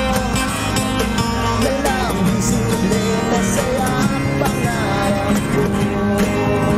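Background music track with guitar and a steady beat.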